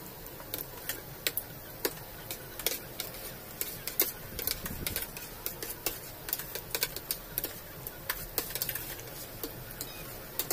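Metal forks and spoons clicking and scraping irregularly against plates while two people eat.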